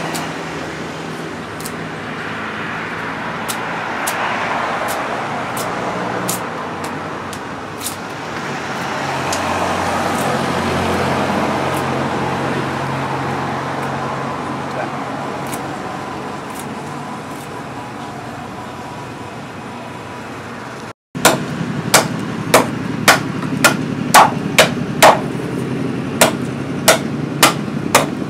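A steady wash of background noise that swells and fades twice, then, after a short break, a double-edged billhook chopping into a wooden stake on a wooden block: sharp, loud blows about twice a second, some fourteen in all.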